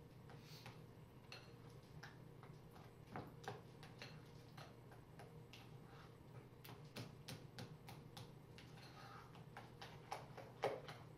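Faint, irregular clicks and taps of a spoon against a mixing bowl as a pumpkin ice cream mixture is stirred, over a low steady hum.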